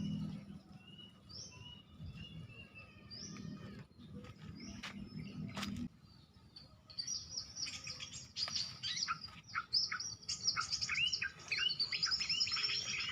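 Small birds chirping sparsely, with two sharp clicks around five and six seconds in; from about seven seconds in, dense, rapid chirping and trills of mixed small-bird calls, a bird-call lure recording played to draw birds to birdlime sticks.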